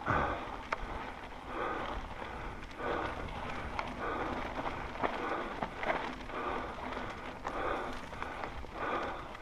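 Mountain bike rolling fast down a dry dirt singletrack: tyres crunching over loose dirt and rock, with scattered sharp clicks and knocks from the bike. A rushing noise swells and fades about once a second over a low wind rumble on the helmet-mounted camera.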